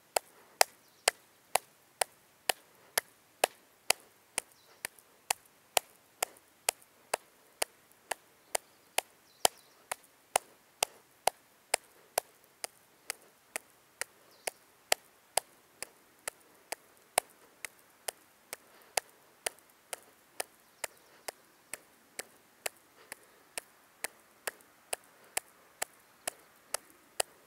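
One person clapping their hands steadily in front of the chest, about two claps a second.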